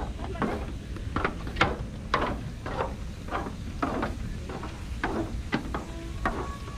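Footsteps on a wooden boardwalk at a walking pace, about two a second, over wind rumbling on the microphone.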